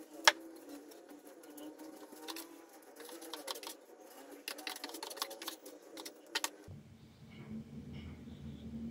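Plastic broom and dustpan sweeping a tiled floor: scattered clicks and knocks, with a sharp knock just after the start. About two-thirds of the way in, this gives way to a steady low hum.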